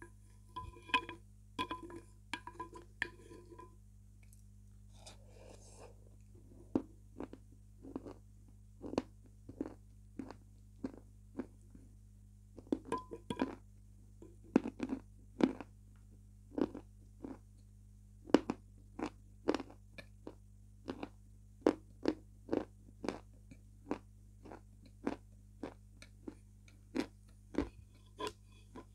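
Close-miked wet mouth sounds of eating soft milk-soaked food from a spoon: sharp smacking and chewing clicks, about two a second. A few brief pitched sounds come near the start and about halfway through.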